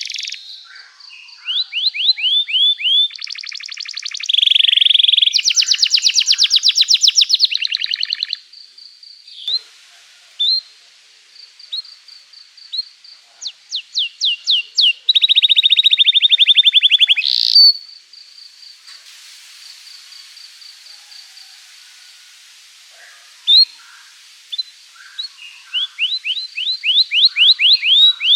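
Domestic canary singing a long song: runs of repeated down-slurred chirps and fast buzzy trills, phrase after phrase, broken by short pauses.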